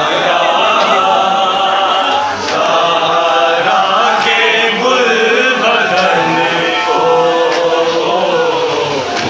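A large crowd of men chanting together, many voices at once, loud and steady. It is a Shia mourning chant raised around a taboot of Imam Hassan.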